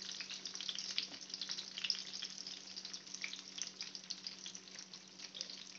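Stuffed eggplant slices shallow-frying in sunflower oil in a pan, with a steady sizzle and fine crackling.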